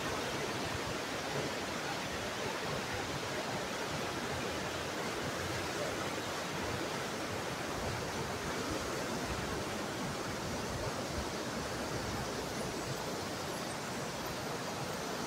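Steady rush of river water running in rapids over boulders.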